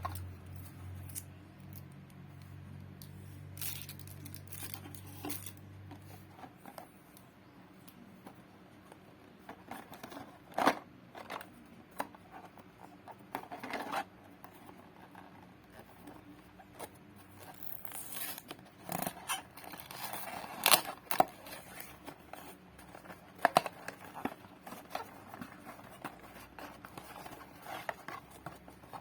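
Toy packaging being cut and torn open by hand: scattered scissor snips, tearing, and crinkling plastic and card, with the loudest snaps in the middle and latter part. A low steady hum stops about six seconds in.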